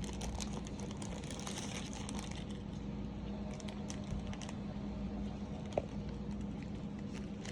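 Plastic packaging being handled: light crinkling and scattered small clicks, over a steady low hum.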